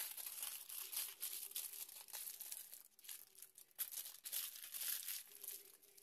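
Aluminium foil crinkling irregularly as it is rolled tightly around a stuffed chicken fillet and twisted closed by hand. The crinkles grow sparser near the end.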